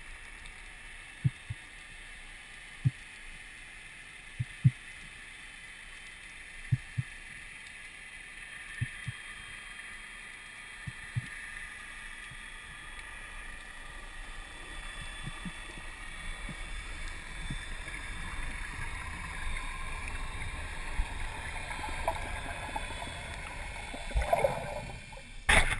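Underwater ambience on a spearfishing freedive: a steady water hiss, with soft low thumps coming in pairs every couple of seconds during the first half. The water noise swells steadily over the second half and ends in a short burst of splashing.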